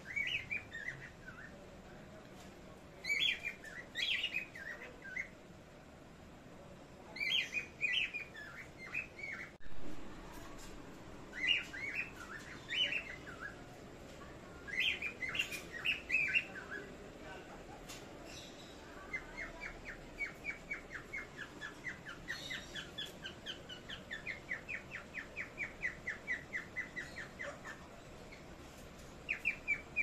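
Pet cockatiels and other small parrots chirping: short bursts of calls every few seconds, then from about two-thirds of the way in a long run of rapid, evenly repeated chirps.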